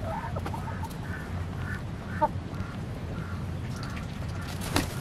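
A small flock of poultry making short, repeated calls over a steady low rumble, with a sharp knock about two seconds in and a louder one near the end.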